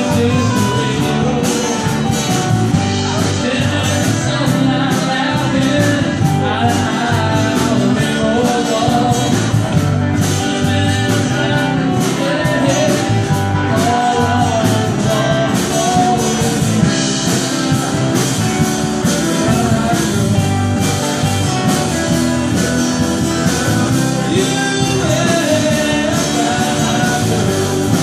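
Live band playing: a drum kit keeps a steady beat under electric bass guitar and acoustic guitar, with singing over the top.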